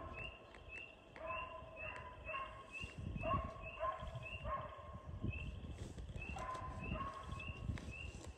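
Hounds baying in the distance on a deer's trail, a steady run of calls about two a second that fades and returns, with wind rumbling on the microphone.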